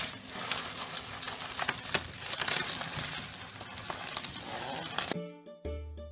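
Plastic wrapping crinkling and crackling, with scattered sharp clicks, as a cat thrashes about inside a sleeve of it. About five seconds in it cuts to a keyboard tune with a pulsing bass.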